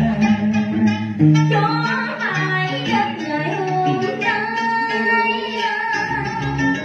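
Cải lương song: a voice sliding and wavering through long ornamented phrases over a plucked guitar accompaniment.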